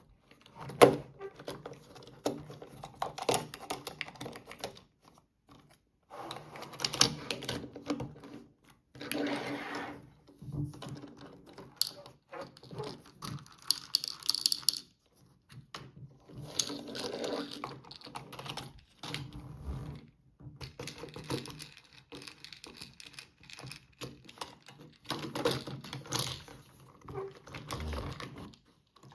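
Plastic playset parts being handled: irregular clicks and light rattles, with a few patches of denser rustling.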